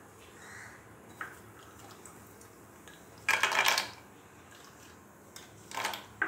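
Cashew nuts being tipped into a non-stick frying pan of ghee: two short clattering rattles, the first about three seconds in and the louder, the second just before the end.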